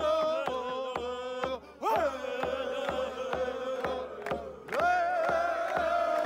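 Native American frame drum beaten steadily, about three beats a second, under a sung chant in long held notes with other voices of a crowd chanting along. The chant breaks off briefly twice, each time coming back in with a rising cry.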